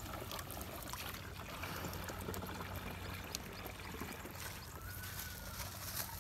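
Liquid pesticide mixture poured from a plastic bag into the filler opening of a plastic backpack sprayer tank, a steady trickling and splashing stream.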